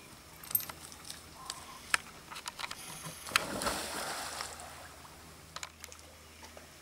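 A dog jumping off a wooden jetty into a lake, splashing into the water a little past halfway through. Scattered light knocks come before the splash.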